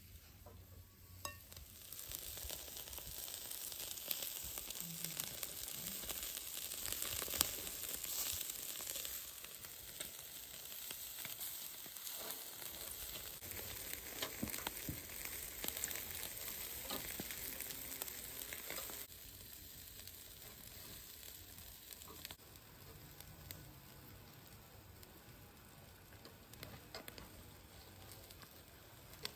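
Food frying in hot fat, a steady sizzle with scattered crackles. It swells about two seconds in and drops to a quieter sizzle about two-thirds of the way through.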